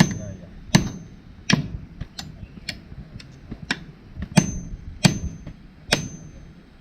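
Hammer blows driving nails, roughly one strike every three-quarters of a second, several with a short high metallic ring.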